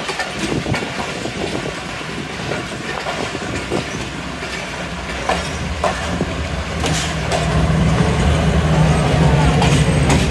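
Passenger train coaches rolling past on the next track, their wheels clicking and clanking over rail joints. About three-quarters of the way through, a louder steady low rumble with a hum sets in.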